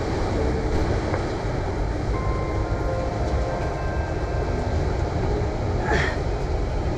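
Wind buffeting the microphone: a steady, fluctuating rumble, heaviest in the low tones, with no voices over it.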